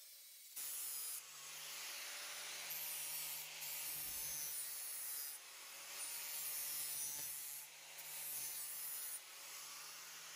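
Angle grinder with a 60-grit flap disc grinding the steel face of a double-bit axe head. It comes in several passes of a second or two each, easing off near the end.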